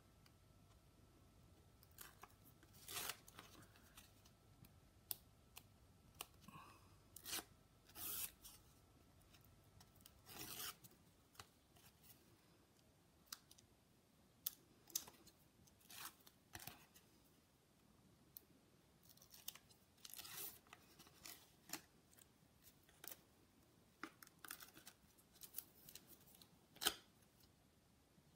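Hands working card and paper: scattered short snips, rustles and light taps, irregular, with gaps of a second or more between them.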